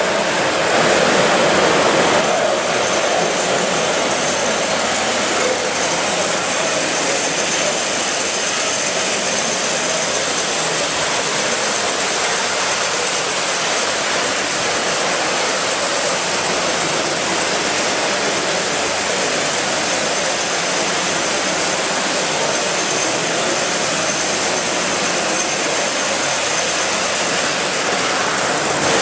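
Live-steam gauge 1 model steam-turbine locomotive running: a steady, unbroken steam hiss with no exhaust beats, the continuous exhaust typical of a turbine drive. It is a little louder about a second in.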